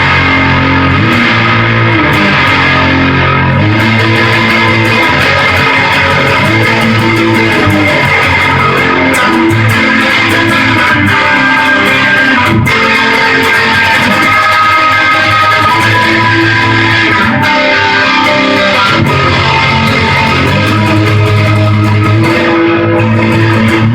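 Short-scale, Rickenbacker 325-style electric guitar played with a heavy, distorted tone: a loud riff of chords changing every second or so.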